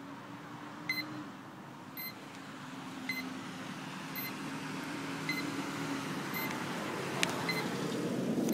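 Tricopter's onboard beeper giving short high beeps about once a second, over the steady hum of its electric motors. The motor noise grows louder toward the end as the motors spin up.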